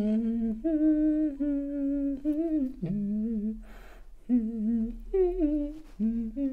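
A man humming a wordless tune to himself, holding notes and sliding between them, with a quick breath a little past halfway.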